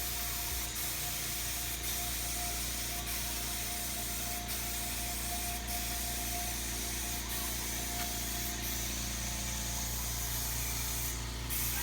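Electric paint sprayer running steadily, its motor humming under the hiss of the spray, with a faint tick every second or so.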